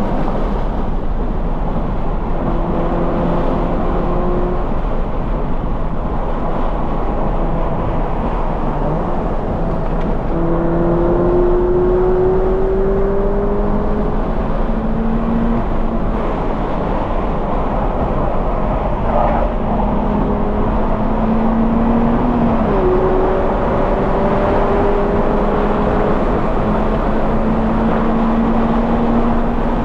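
A 2020 Toyota 86's 2.0-litre flat-four, breathing through a Corsa cat-back exhaust, pulling hard at track pace. Its pitch climbs steadily through each gear and drops back at every upshift, several times over, with a heavy rushing noise underneath.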